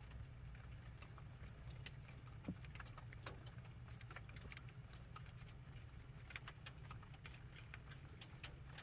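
Heavy falling snow heard as faint, irregular ticking against surfaces, over a low steady hum.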